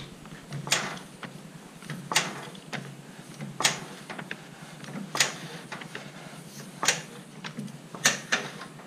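1.5-ton aluminum racing floor jack being pumped by its long handle to lift a car. Each stroke gives a sharp click about every second and a half, six or so in all, with lighter ticks in between.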